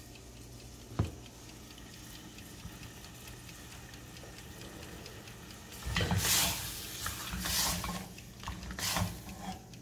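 Marinated chicken pieces cooking in melted butter in a pan with a faint steady sizzle; a single click about a second in. From about six seconds, a spoon stirring and scraping through the pan in a run of irregular strokes.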